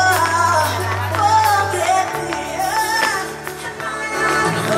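Band music with a singing voice over held bass notes and percussion.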